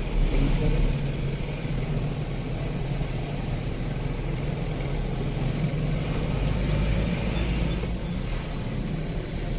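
Motor vehicle driving along a road: a steady low engine and road rumble.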